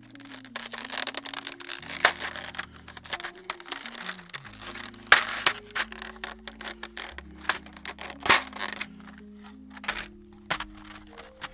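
Plastic keycap tray being pried open and handled: crinkling, crackling plastic and sharp clicks, several times, over background music.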